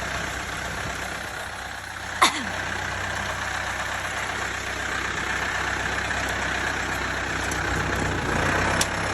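Backhoe engine running steadily. About two seconds in there is one sharp knock with a short falling squeak, and a faint click comes near the end.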